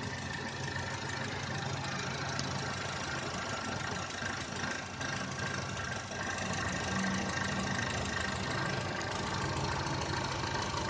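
Wuling Confero Lux+ engine idling, with a steady high-pitched chirping whine over the low engine hum, like a cricket, that grows stronger about halfway through. It is an unexplained abnormal engine-bay noise whose source the owner cannot locate.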